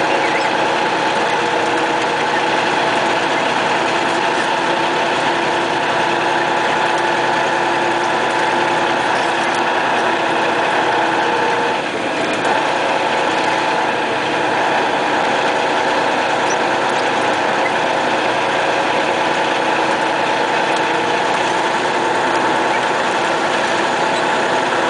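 MAZ snowplow truck's diesel engine running steadily under way, heard from inside the cab as a constant drone with steady mechanical whine and road noise. The level dips briefly about halfway through.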